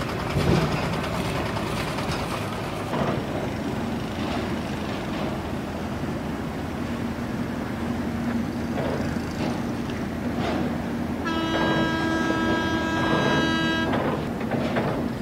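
A boat's horn gives one steady blast of about two and a half seconds, starting about eleven seconds in, over the continuous rumble of boat engines and water.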